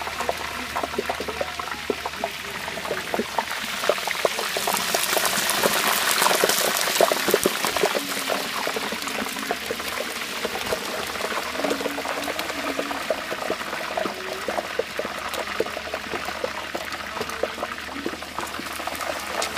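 Liquid poured in a thin stream from a pitcher onto a turkey in a large pot of hot oil, bubbling and crackling as it frying-sizzles. The sizzle grows louder about four to seven seconds in, then settles to a steady crackle.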